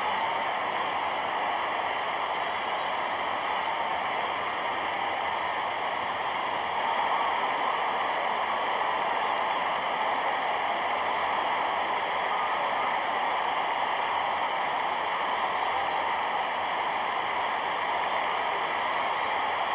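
Steady rushing noise, like a constant hiss, with no distinct events.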